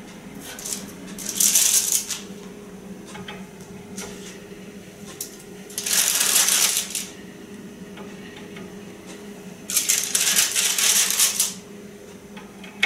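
Parchment baking paper rustling and crinkling as baked sugar cookies are peeled off it, in three short bursts about four seconds apart, over a low steady hum.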